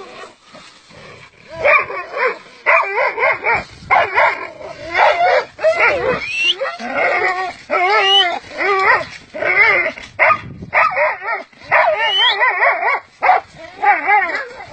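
Several dogs barking hard and fast over one another, with a few high rising yelps among the barks, as they hold an animal treed above them. The barking starts about a second and a half in.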